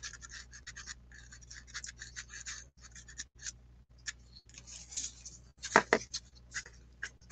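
Soft pastel stick scratching across paper in quick, irregular strokes, with one louder stroke about three-quarters of the way through.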